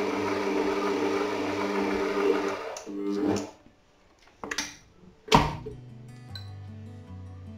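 AEG stand mixer's motor running steadily as its dough hook kneads bread dough, switched off about three seconds in. A couple of knocks and then a loud clunk follow as the mixer head is unlocked and tilted up, and faint background music comes in near the end.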